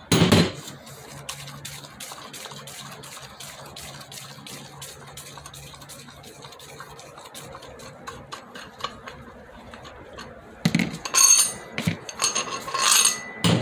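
Metal clanks and light clicking of a threaded-rod wheel bearing installer being backed off and taken apart on a motorcycle wheel hub, after pressing in a new bearing. There is one loud clank at the start, faint ticking through the middle, and two louder clattering bursts near the end as the tool's plates and nut come off.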